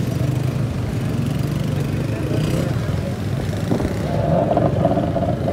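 Motorbike engines running in busy street traffic, a steady low rumble, with a higher engine note joining about four seconds in.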